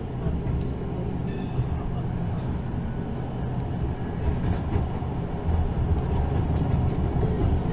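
Saarbahn tram-train running along a street, heard from inside the car: a steady low rumble of wheels on rail and drive, with a few light clicks.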